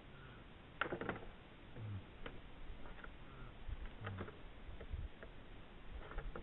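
Two red deer stags sparring with locked antlers: irregular clicks and knocks of antler against antler, a cluster of them about a second in and more scattered through to the end.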